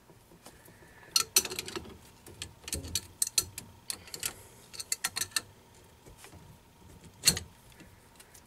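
A wrench working the fittings on copper hydraulic steering lines: irregular runs of sharp metallic clicks between about one and five and a half seconds in, then one louder click near the end.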